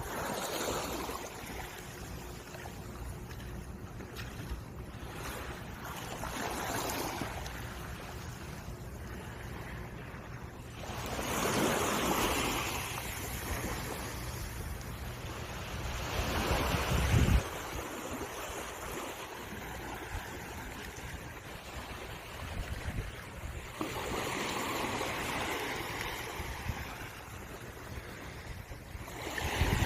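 Sea waves breaking and washing up the beach in several louder surges, over a steady rumble of wind on the microphone, with a low thump about seventeen seconds in.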